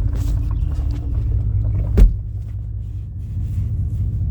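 Steady low rumble of a pickup truck heard from inside the cab, with one sharp smack about halfway through, a swat at a wasp inside the cab.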